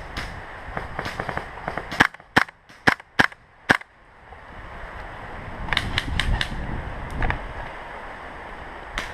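Airsoft guns firing single shots as sharp cracks. About five loud ones come in quick succession between two and four seconds in, and a cluster of several follows around six seconds, with fainter shots before them.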